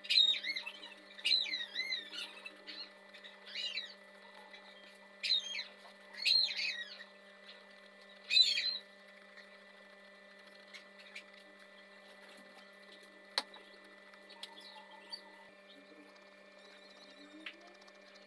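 Bird calling: several short, high chirping phrases with swooping pitch over the first nine seconds or so, over a steady electrical hum. A single sharp click about thirteen seconds in.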